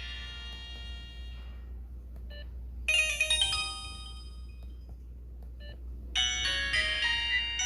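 Samsung SGH-T629 mobile phone ringtones: the tail of one tune fades out, a short bright chime-like melody plays about three seconds in, and another ringtone starts about six seconds in. A brief blip comes just before each new tune.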